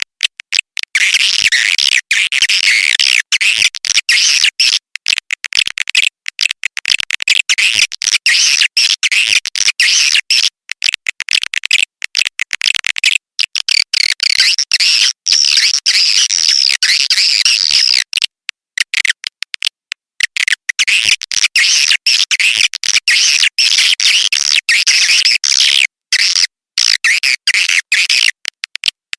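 Swiftlet call track: dense, high twittering chatter of many swiftlets, stuttering with frequent split-second dropouts and pausing briefly about 18 and 26 seconds in. It is a lure call of the kind played to draw swiftlets into a swiftlet house.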